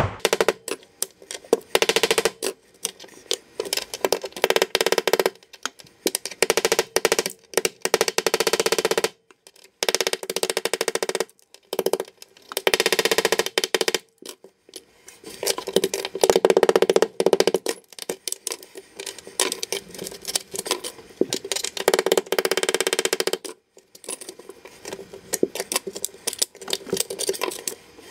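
A travertine backsplash tile being chipped out with a hammer and chisel: runs of quick metal-on-stone blows that stop and start again every few seconds.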